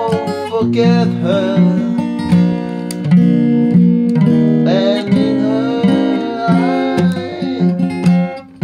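Acoustic guitar music, with chords and notes played in a steady rhythm.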